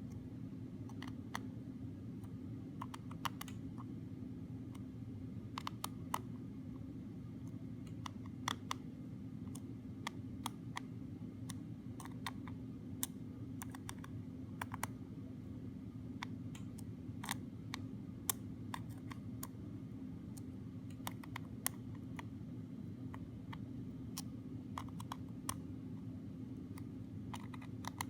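Small screwdriver working the tiny screws inside an iPod, a few light clicks and ticks at irregular intervals as the tip seats and the screws are snugged. A steady low hum runs underneath.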